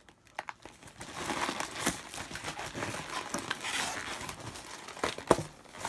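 Plastic mailer bag and packing tape crinkling and tearing as a parcel is pulled open by hand, with a few sharp snaps among the rustling. It starts about a second in.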